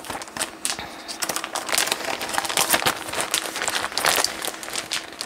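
A cross-stitch pattern packet being handled, crinkling in a dense run of small crackles.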